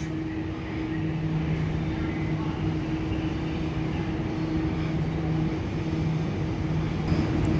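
Electric passenger train running at the platform: a steady hum on two notes, one an octave above the other, over a low rumble.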